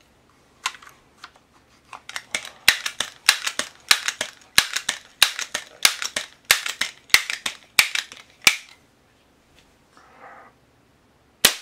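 .177 calibre pump pellet pistol being pumped, a quick run of clacking strokes about two a second for some eight seconds. Then one sharp shot near the end as it fires a toothpick.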